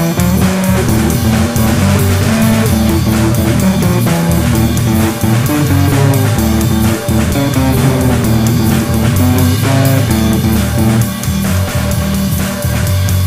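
A recorded rock track played back, with guitar, bass and a drum kit keeping a steady beat throughout.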